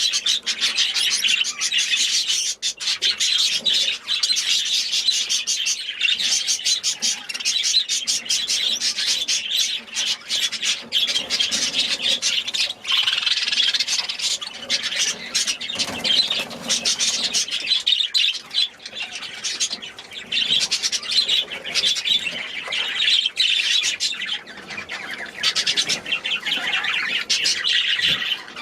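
A flock of cage birds chattering, chirping and squawking continuously, many calls overlapping at once.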